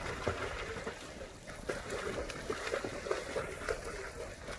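A child swimming freestyle in a pool, arm strokes and kicks making irregular splashing in the water.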